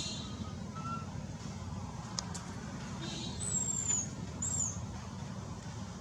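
A baby monkey gives two short, very high-pitched squeaks that fall in pitch, about halfway through, over a steady low background rumble.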